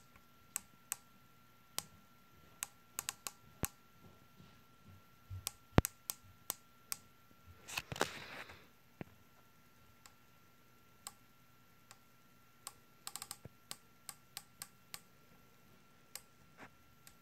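Vortex riflescope turrets being turned by hand, giving sharp single detent clicks at uneven spacing, with a quick run of about five clicks about two-thirds of the way through. The elevation turret is the one the owner calls defective, off by half a click. About halfway there is a short rustle of the scope being handled.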